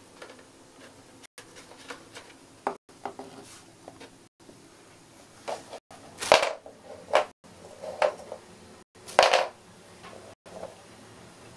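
Scrapes and knocks of a hard bone-shaped dog biscuit dragged across a laminate floor by a hamster, irregular and scattered, with two louder scrapes about six and nine seconds in.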